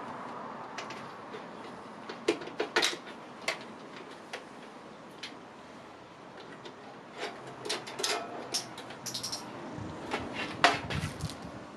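Scattered clicks, taps and knocks of computer hardware being handled and worked loose in a PC case, busiest in the second half with a sharper knock near the end.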